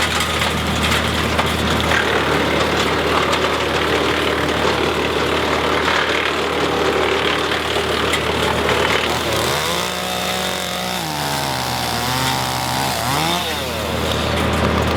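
Tractor-driven PTO wood chipper running at speed, with the tractor engine's steady hum under the noise of the chipper working. About two thirds of the way in, a pitched tone rises, holds, dips and climbs again for a few seconds.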